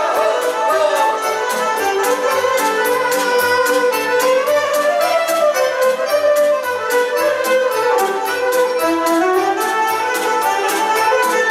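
Live band playing an instrumental Romanian folk dance tune: a violin carries the melody, with a saxophone and a steady, even beat underneath.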